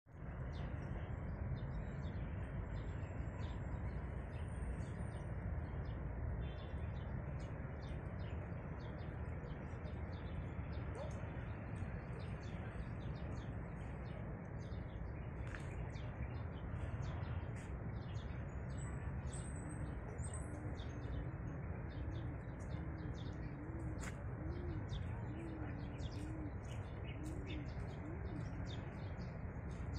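Small birds chirping and twittering over a steady low rumble, with a few short high whistles. In the second half a pigeon coos repeatedly, in low wavering notes.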